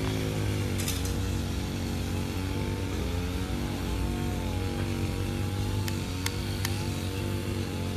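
A small motor running steadily with a droning hum whose pitch wavers slightly, and a few short sharp clicks, one about a second in and three close together about six seconds in.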